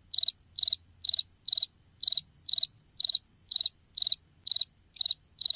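Cricket chirping in an even rhythm, about two short chirps a second, with a faint steady high-pitched insect trill underneath.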